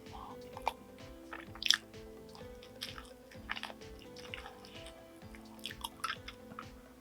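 Close-miked chewing and biting: scattered wet mouth clicks and chews, with one sharper click a little under two seconds in, over soft background music.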